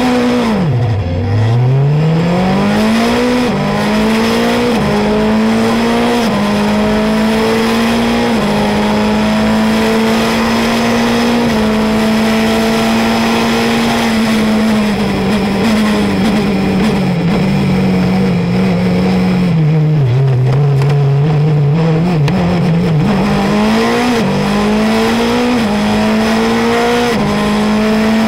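Onboard sound of a Formula Renault 2.0 car's 2.0-litre four-cylinder engine at race pace. The revs drop sharply about a second in, then climb through a run of quick upshifts and hold high. Around the middle they step down through downshifts under braking, sit low for a few seconds, then climb through upshifts again near the end.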